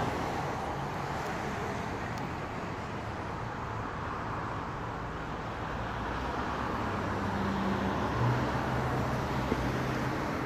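Steady hiss of distant road traffic in a city at night, with a low engine hum from a passing vehicle joining about eight seconds in.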